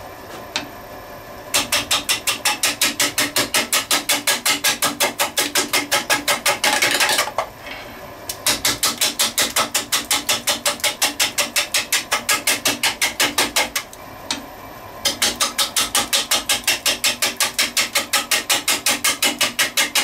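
Gouge taking intermittent cuts on a square kiln-dried pine winged-bowl blank spinning on a wood lathe: a rapid, even clatter as the wings strike the tool edge each turn, because the gouge is cutting air much of the time. The clatter stops twice, about halfway and again about three-quarters through, when the gouge is drawn back, leaving only the lathe's quiet running.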